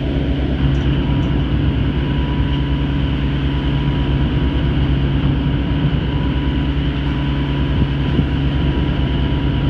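Fishing vessel's engine running, a steady low drone with a faint steady whine above it.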